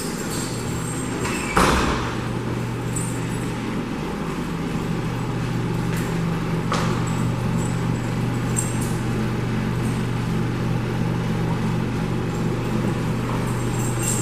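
A steady low mechanical hum under an even rushing noise, with a sharp knock about one and a half seconds in and two fainter clicks around six and seven seconds in.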